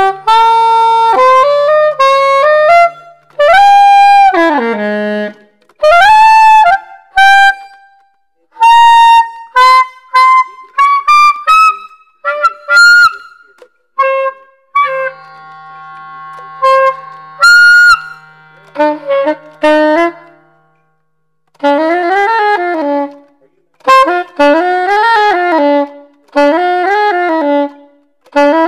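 Soprano saxophone played solo in short phrases separated by pauses: held notes, a slow upward slide, and near the end a string of notes that bend up and down in pitch. It is a play test of the horn just after cleaning and re-greasing the cork.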